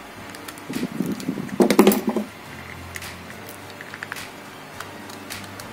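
Small sharp clicks and scrapes of a precision screwdriver tip prying at the plastic housing of an action camera to unclip its front cover, with a louder stretch of rubbing and handling noise between about one and two seconds in.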